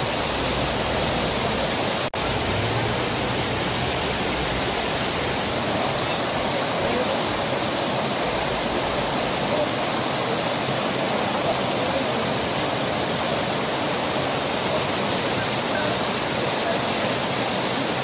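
Snowmelt stream rushing and splashing over rocks below a waterfall, a steady full rush of water that drops out for an instant about two seconds in.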